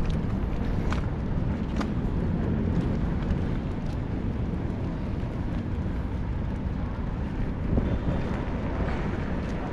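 Wind buffeting the microphone while riding a mountain bike: a steady low rumble with a few light clicks.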